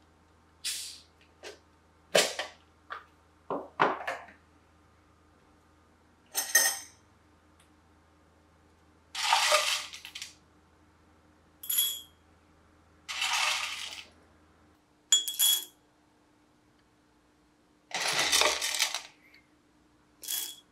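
Whole coffee beans clattering and rattling against a ceramic dosing cup as they are scooped and poured in. This comes as a series of short clatters, after several sharp clicks and taps in the first few seconds from handling the bean canister and cup.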